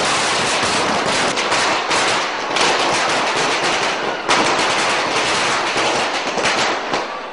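A long string of firecrackers going off, rapid bangs following one another continuously with only brief dips.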